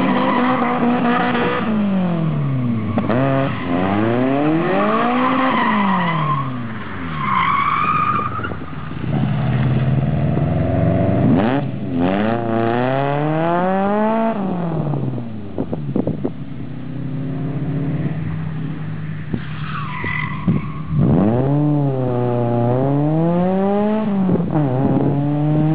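Toyota AE86 Corolla's four-cylinder engine through an OBX 4-into-1 exhaust header, revving up and falling back again and again as the car is driven hard. The tires squeal a few times.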